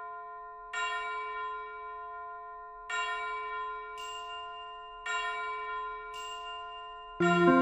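Background music: a ringing bell-like chord struck three times, about two seconds apart, each dying away slowly, with a brighter high chime sounding between the strikes twice. A fuller music track comes in near the end.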